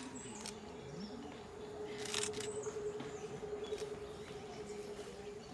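Garden ambience: birds chirping faintly over a steady hum, with a few short sharp clicks, the loudest about two seconds in.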